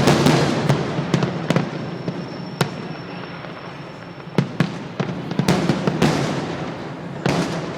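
Fireworks going off: a string of sharp bangs at uneven intervals, with crackling and rolling echo between them, loudest at the start and again from about four and a half to six seconds in.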